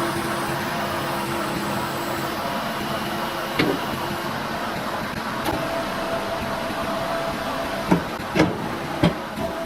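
Skid steer running a hydraulic attachment: a steady machine drone whose pitch steps up about halfway through, with several sharp knocks near the end.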